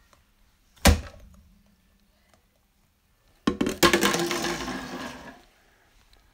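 A single sharp knock about a second in, then about two seconds of dense clicking and crackling clatter that fades away.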